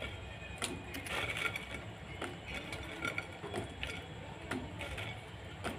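Fried besan pakodis dropped by hand one after another into a steel pot of warm water: irregular small plops and taps, about two a second, over a low steady hum.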